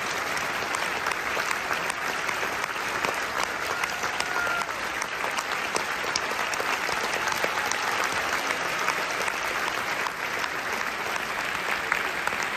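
Audience applauding: dense, steady clapping from a large crowd.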